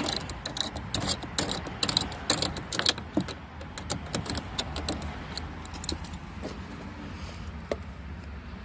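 Small metal bolts clinking and rattling as they are handled and set into the door handle mount, a quick run of sharp clicks over the first three seconds, then a few scattered ones.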